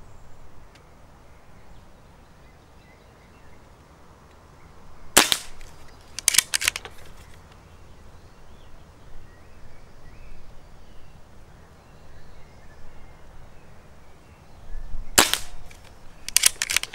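Two shots from a Stoeger XM1 .177 PCP air rifle with its built-in silencer, about ten seconds apart. Each sharp report is followed about a second later by a quick cluster of clicks.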